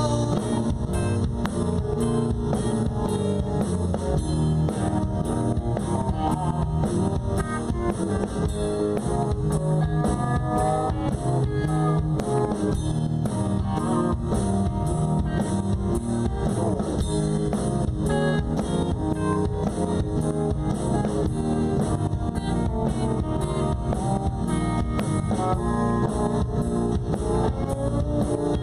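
Country band playing live, an instrumental passage of guitar over a steady drum-kit beat.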